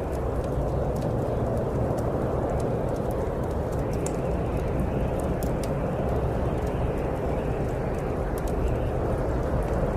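Steady snowstorm wind rushing, swelling and easing slightly, with the small sharp pops and crackles of a burning wood fire scattered throughout.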